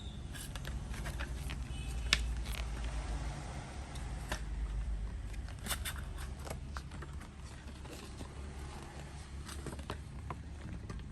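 Plastic clicks, creaks and rustling from a cassette tape and its case and wrapping being handled and opened, over a steady low hum.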